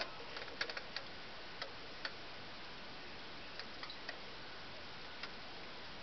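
Irregular sharp clicks like clockwork ticking over a steady hiss: a quick cluster in the first second, then single clicks spaced out, the last about five seconds in. The uploader takes it for a sound from the sky, perhaps from seagulls, crows or ravens.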